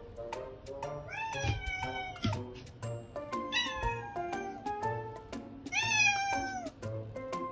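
Domestic cat meowing three times, each call about a second long and bending up then down in pitch, over background music with a steady beat.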